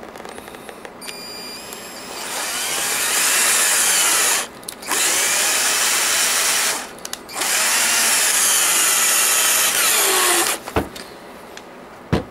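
Cordless drill-driver running in three bursts of two to three seconds, driving self-tapping screws into the heel of a figure skate boot, its pitch sliding as the screw bites. Two sharp knocks near the end.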